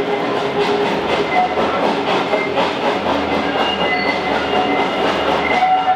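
Maroon passenger coaches of a steam-hauled train rolling past, their wheels clattering over rail joints, with short thin squeals from the wheels now and then.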